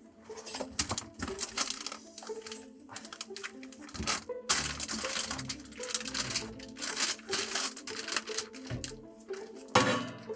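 Background music with held notes, over crinkling, rustling and light knocks from a stainless chimney elbow wrapped in insulation wool being pushed into a foil-lined wall opening. There is a sharper, louder rustle near the end.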